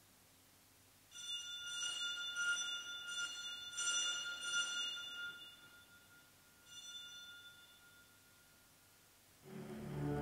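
A small church bell struck about six times in quick succession, its ringing hanging on between strokes, then once more after a pause: the sacristy bell that marks the start of Mass. Near the end a pipe organ begins to play.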